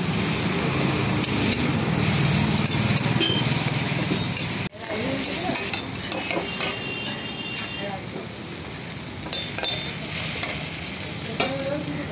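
A metal spatula scraping and tossing paneer and vegetables in an iron wok over a gas flame, the food sizzling as it stir-fries, with a steady hiss and frequent short scrapes and clinks. The sound breaks off for an instant just under five seconds in and carries on a little quieter.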